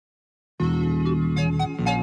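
Silence, then intro music begins about half a second in, with held keyboard chords.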